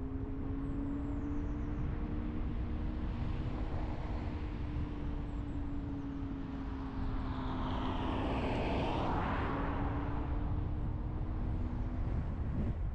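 Car driving, heard from the recording car: a steady low road rumble with an even, slightly wavering engine hum. A broad swell of noise rises and falls about eight to ten seconds in.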